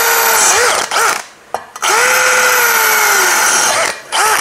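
Bosch cordless drill with a Bosch Expert Hard Ceramic bit boring into ceramic floor tile: a motor whine over the grinding of the bit in the tile. One run winds down with falling pitch about half a second in, the drill starts again with a rising whine about two seconds in and runs for about two seconds, and a short burst comes near the end.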